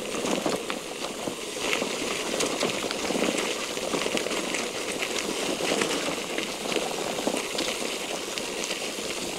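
Bicycle tyres rolling over wet, muddy cobblestones and dirt in light rain: a steady crackling hiss with many small irregular clicks and rattles from the rough surface.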